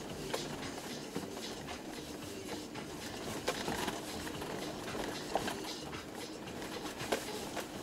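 Cabin noise of a Toyota Land Cruiser 120 driving on a rough track: a steady road noise with irregular knocks and rattles.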